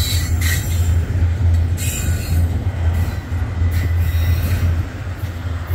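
Union Pacific double-stack container train rolling past, its wheels and cars making a loud steady low rumble. There are brief clanks and a short high wheel squeal near the start, and another clank about two seconds in.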